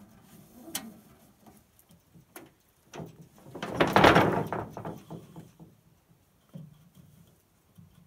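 Handling noises from gear and rope being worked in an aluminum canoe: scattered clicks and knocks, with one louder rustling scrape about four seconds in.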